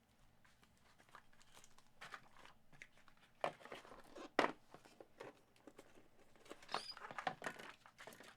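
Trading-card packaging being torn open and crinkled by hand, with irregular rustling and several sharp crackles.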